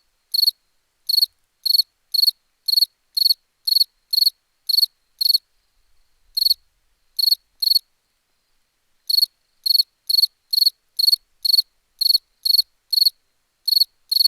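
A cricket chirping in short, high, evenly spaced chirps about two a second, breaking off twice for a second or so near the middle.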